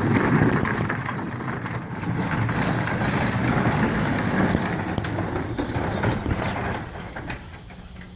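Rough, steady rumble of a child's electric ride-on ATV's plastic wheels rolling over pavement, fading near the end.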